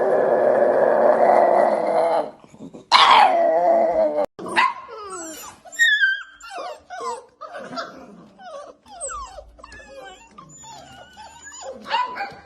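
A dog vocalizing: a long, loud drawn-out call, a second loud call falling in pitch about three seconds in, then a string of short, high calls, each falling in pitch.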